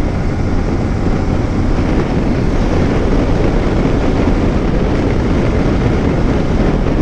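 Yamaha R15M motorcycle under way: a steady, even rush of engine, tyre and wind noise as it is ridden over a rough, patched stretch of road.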